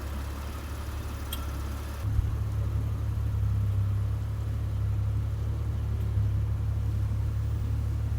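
200-series Toyota Crown Athlete's V6 engine idling with a steady low hum that gets louder about two seconds in, just as a single short knock is heard.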